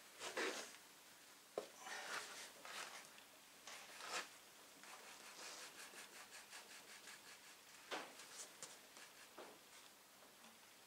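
Faint rubbing, scraping and light metal clicks of hand work on a Ford flathead V8 with its cylinder heads off, as it is turned over by hand to find top dead centre. A quick run of faint ticks comes in the middle.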